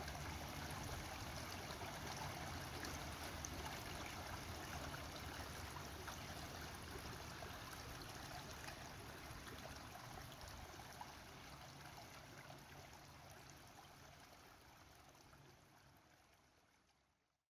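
Steady running water of a stream, fading out gradually over the last several seconds.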